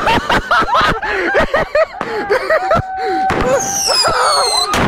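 New Year's firecrackers cracking in quick succession amid people shouting and laughing. Near the end come several falling high whistles.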